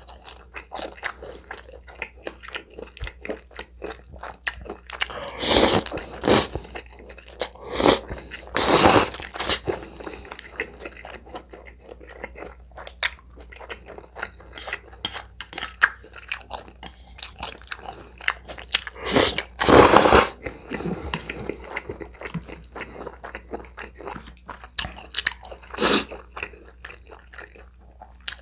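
A person chewing food close to the microphone, with a steady run of wet mouth clicks. Several louder bursts stand out, a cluster about a quarter of the way in, two more around two-thirds through, and one near the end.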